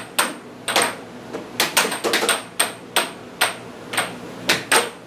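Air hockey rally: the plastic puck clacking against the players' mallets and the table's side rails, a quick uneven run of sharp hard knocks, about three a second.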